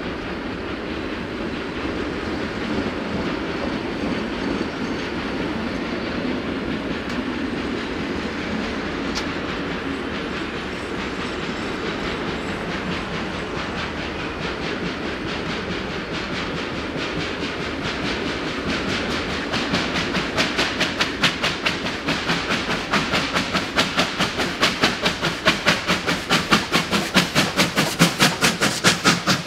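A steam-hauled train of heritage wooden passenger carriages rolling on the rails, with a steady rumble of wheels. About two thirds of the way through, a fast, even beat comes in and grows louder: the exhaust of a steam locomotive working.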